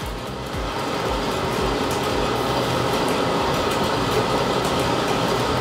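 Stronghold S7 coffee roaster running with a steady whirring noise from its fan and turning drum, late in the roast after first crack, just before the beans are dropped.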